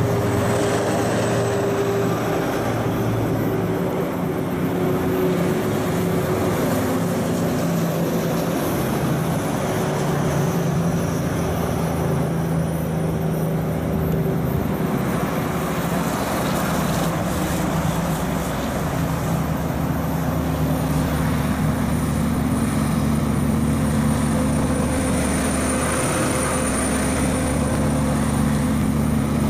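Diesel engines of heavy trucks running as the trucks drive past one after another, a continuous drone whose pitch shifts slowly.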